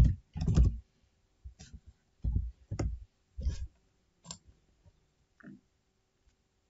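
Computer keyboard keystrokes and mouse clicks: about eight separate, irregularly spaced taps, some with a dull thud, dying away in the last second or so.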